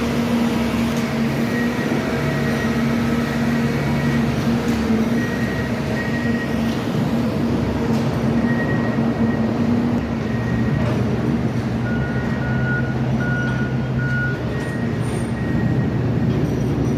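Railway track-maintenance machinery running on the rails: a loud, steady engine drone whose hum changes pitch now and then.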